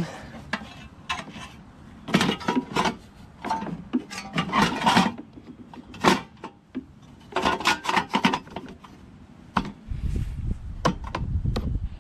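Irregular scraping, rubbing and clattering of metal and plastic mower engine parts being handled and fitted back together during reassembly, with a few sharp clicks. About ten seconds in, electronic background music with a low beat comes in.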